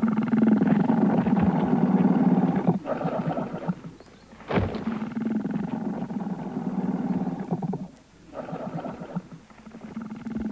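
Sleeping elephant snoring: a low, raspy, rapidly pulsing sound in stretches of one to three seconds, broken by short pauses. A single sharp click comes about four and a half seconds in.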